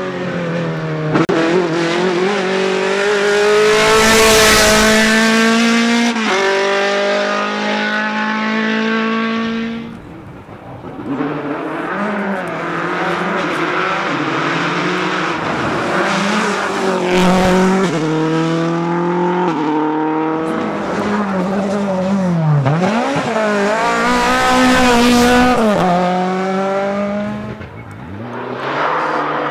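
Rally cars passing on a special stage, one after another, engines revved hard. Each engine note climbs in pitch and drops back at every upshift. Around the middle, a car's engine falls steeply in pitch as it slows, then climbs again as it accelerates away, and another car approaches near the end.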